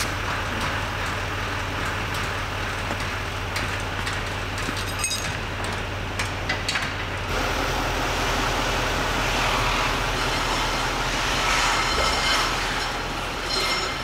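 GMC Sierra Denali pickup truck engine running as it pulls a boat on its trailer out of a shed, with a few clicks and clanks from the hitch and trailer. The engine note changes about seven seconds in, when the truck gets moving.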